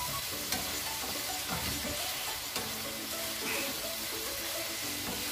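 Marinated pork sizzling in a nonstick frying pan as a wooden spatula stirs and scrapes through it, with a few sharp taps of the spatula. The last of the cooking liquid is being cooked off so the meat starts to fry.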